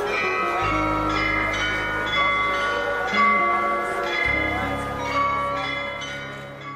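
Bells ringing a slow melody of struck, lingering notes over sustained low chords, which change about half a second in and again past four seconds.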